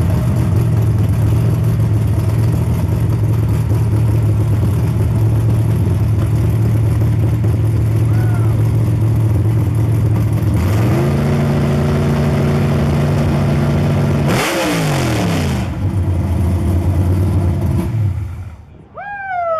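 Chevrolet Camaro drag car's engine idling loudly. About halfway through it is held at a higher steady rev for a few seconds, then given a quick throttle blip and let back down to idle. It shuts off near the end.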